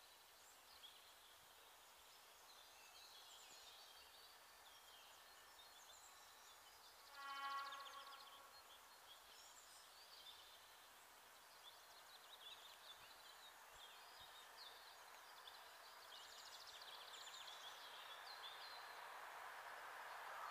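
Faint birdsong in quiet forest, with one brief pitched honk about seven seconds in. Near the end a soft, rising rumble comes in as a train approaches: a PKP EP07 electric locomotive hauling a TLK passenger train.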